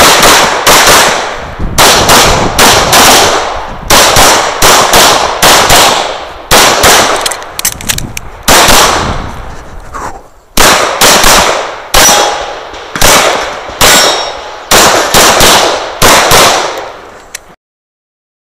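Rapid handgun fire heard from the shooter's own position, the shots coming in quick strings of two or three with a short lull about ten seconds in. Stops suddenly near the end.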